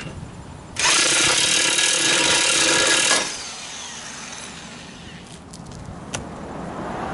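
Electric impact wrench hammering in one run of about two and a half seconds, driving the press screw of a ball joint separator to force a ball joint off. A few light metal clicks follow.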